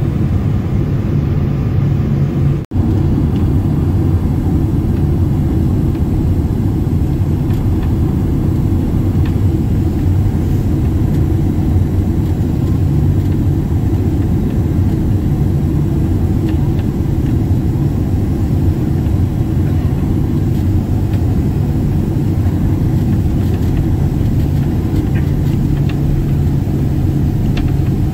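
Steady cabin noise of a Boeing 767-400 taxiing on the ground: a low, even engine and airflow rumble heard from inside the cabin, broken once by a brief dropout about three seconds in.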